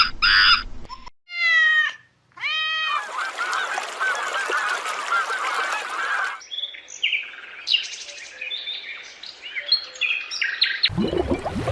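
Bird calls, goose-like honks: a falling call and a rising call, then a flock calling over one another for about three seconds, then scattered higher chirps. A low rough noise begins near the end.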